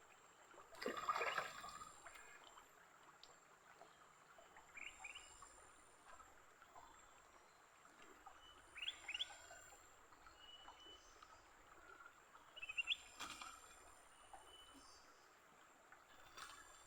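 A bird giving short, quick upward-sweeping chirps, repeated about every four seconds, over a faint steady high-pitched insect drone. A brief louder rustling noise comes about a second in.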